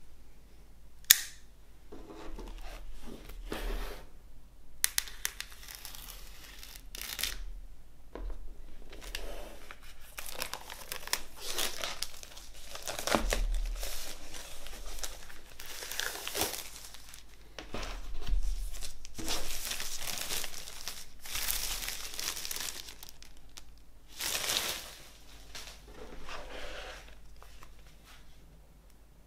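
Clear plastic shrink-wrap being slit and peeled off a vinyl LP sleeve, crinkling and tearing in irregular stretches. One sharp click about a second in is the loudest sound.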